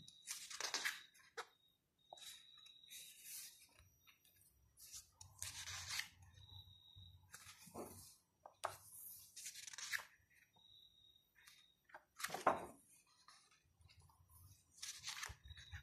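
Pages of a large photobook turned by hand one after another: a papery swish and rustle every couple of seconds, about seven turns.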